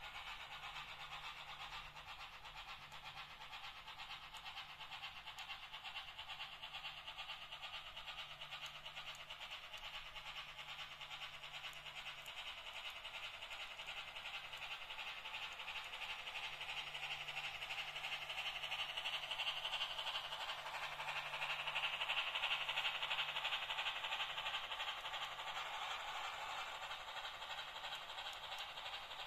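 Märklin H0 model train, a Class T 3 tank steam locomotive pulling passenger cars, running along the track with a fast, even rattle of wheels and motor. It swells to its loudest about three quarters of the way through, then eases a little.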